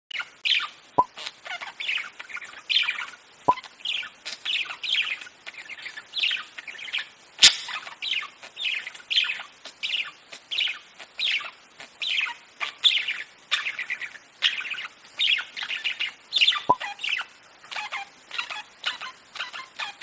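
Budgerigar chirping: a steady run of short, high, falling chirps, two or three a second, with a few sharp clicks, the loudest about seven seconds in.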